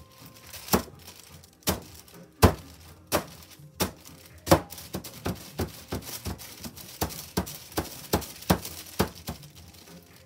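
Mold of wet gypsum plaster (Hydro-Stone) tapped again and again on a tabletop: a string of sharp, uneven knocks about one to two a second, the loudest about two and a half seconds in. The tapping settles and spreads the wet plaster in the mold.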